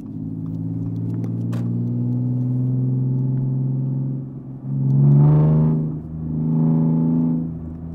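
Supercharged 3.0 TFSI V6 of an Audi A5 with a straight-piped exhaust, droning steadily under light throttle for about four seconds. It then swells twice under throttle, about five and seven seconds in, each time dropping back.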